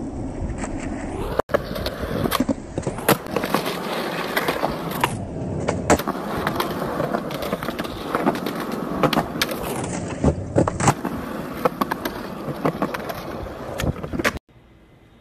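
Skateboard wheels rolling on concrete, with repeated sharp clacks of the board's tail popping and the board landing. The sound stops abruptly near the end.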